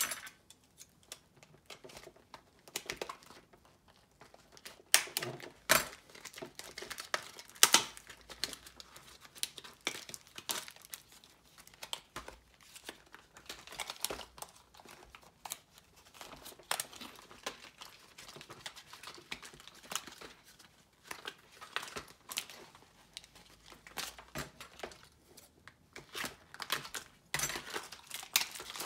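Hands handling and pulling apart a plush animatronic toy dragon, its furry cover rustling against its plastic inner parts. Irregular rustling is broken by scattered clicks and knocks of plastic, the sharpest about five to eight seconds in.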